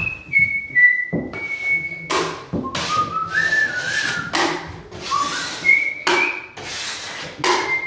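A person whistling a tune in short held notes, with several rasping scrapes of a drywall knife working joint compound against a mud pan and the wall in between.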